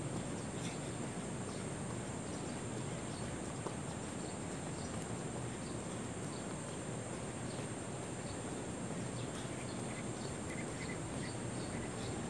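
Insects droning steadily at a high pitch over a low, even background hum, with a few faint taps now and then.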